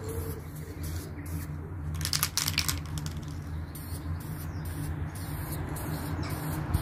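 Aerosol spray-paint can hissing in short bursts, the longest and loudest about two seconds in, over a steady low hum.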